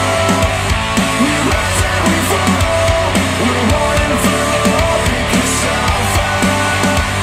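Rock music played back through Monitor Audio Bronze 100 bookshelf speakers driven by a Cambridge Audio CXA61 integrated amplifier, steady and dense throughout.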